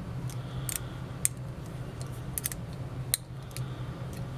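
Scattered small metallic clicks of a tool working the nuts that hold the brush plate onto a Marx 666 toy train motor as they are tightened, over a low steady hum.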